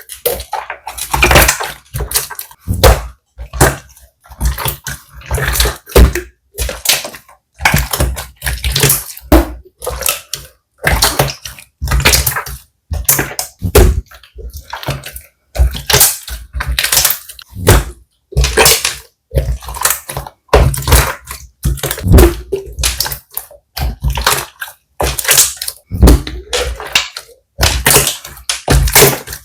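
Slime being squished and pressed by hand: a long series of short wet squelches and crackles, about one or two a second, each cutting off sharply.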